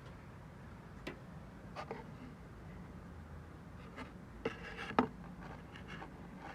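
A few light, sharp clicks and taps from something being handled by hand, over a low steady hum.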